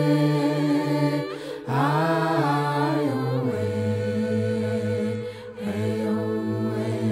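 Music: a song's singing voice holding long notes without clear words, with two short breaks, about a second and a half in and again about five and a half seconds in.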